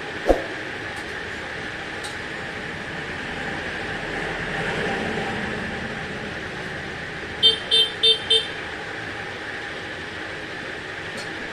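Background traffic noise with a vehicle horn giving four short toots in quick succession a little past halfway. A single sharp knock sounds near the start.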